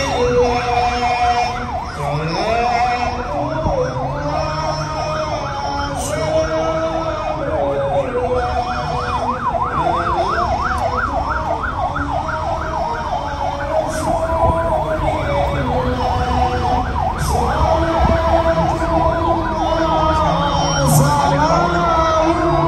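Several vehicle sirens sounding at once, overlapping slow rising-and-falling wails, with a fast yelping sweep of about four cycles a second through the middle.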